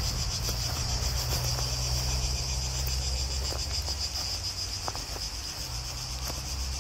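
A chorus of cicadas buzzing steadily in pine trees, with a low steady rumble beneath it and a few faint clicks.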